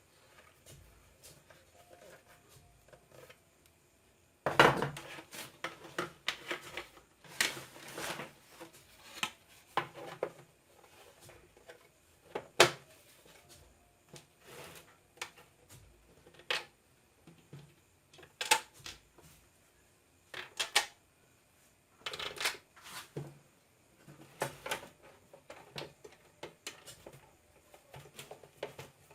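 Irregular clicks, taps and scrapes of small hard parts and tools being handled during hands-on reassembly work, with quiet gaps between them and no motor running.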